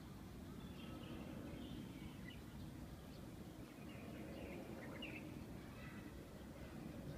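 Small birds chirping faintly and irregularly over a low, steady background rumble of the surrounding city.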